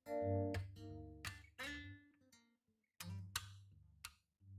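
Background music on acoustic guitar: plucked notes and strums, with a brief pause a little past the middle.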